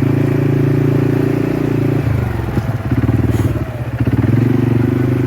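Small vehicle engine running at low, steady revs while moving slowly, easing off about two seconds in and picking back up near four seconds.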